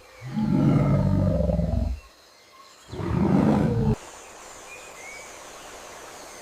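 Two deep animal roars, the first longer, followed by quieter jungle background with a faint bird chirp.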